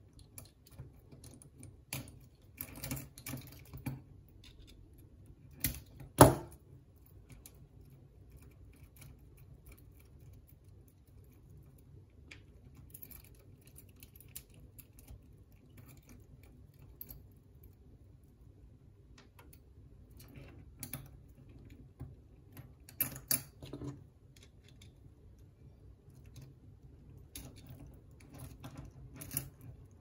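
Small metal clicks and clinks from a stainless steel Leatherman link bracelet and a folding multitool being worked by hand, in scattered clusters, with one sharp, much louder click about six seconds in.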